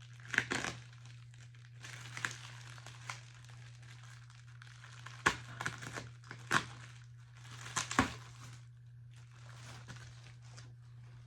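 Packing material and boxed Funko Pop figures being handled and unpacked: crinkling and rustling with a few sharp knocks and clicks, over a steady low hum.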